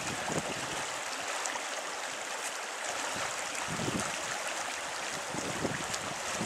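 Small creek flowing over a shallow riffle, a steady rushing, with a few soft low rumbles about four and six seconds in.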